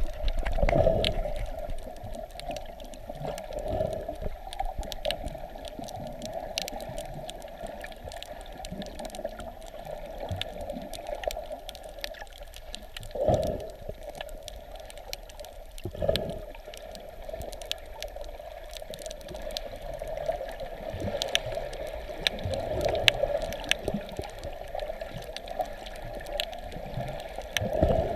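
Muffled underwater sound picked up by a submerged camera: water sloshing and gurgling around it, with scattered small clicks throughout and a few dull thumps, the strongest about 13 and 16 seconds in.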